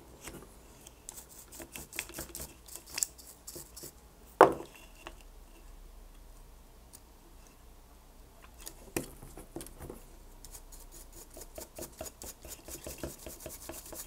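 Small clicks, taps and scrapes of fingers and small tools on the plastic frame and electronics module of a DJI Avata drone being taken apart. A sharper click comes about four seconds in and another about nine seconds in, and a quick run of light ticks fills the last few seconds.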